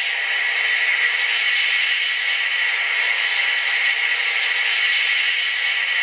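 Recorded GE AC4400CW diesel engine sound played by a ZIMO MX645 DCC sound decoder through the model locomotive's small 28mm speaker, running steadily, thin with no deep bass.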